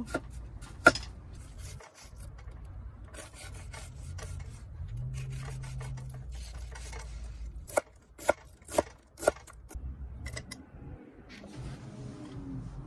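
Knife cutting vegetables on a cutting board: rasping, scraping strokes, then a run of four sharp knocks of the blade on the board, about two a second, some eight seconds in.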